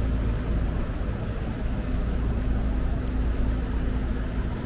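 Steady low rumble of city street traffic, with a faint steady hum underneath.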